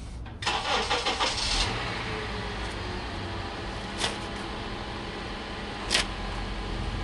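A car engine starting, catching after a short loud surge, then idling steadily. Two short sharp clicks about four and six seconds in.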